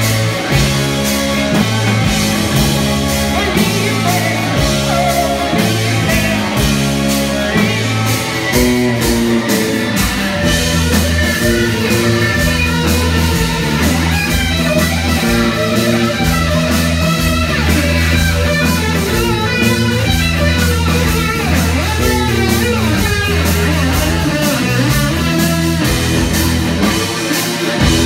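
Live rock band playing loudly: electric guitar, bass guitar, keyboard and drum kit, with a stepping bass line and busy guitar lines on top from about eight seconds in.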